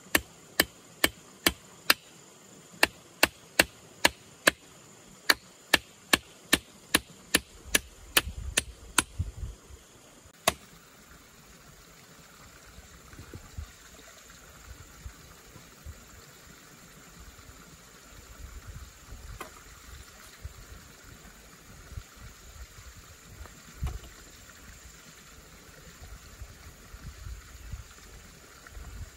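Hammer driving nails into bamboo poles: a run of sharp blows, two or three a second with a short break about two seconds in, stopping about nine seconds in, with one last blow a moment later. After that only a few faint knocks.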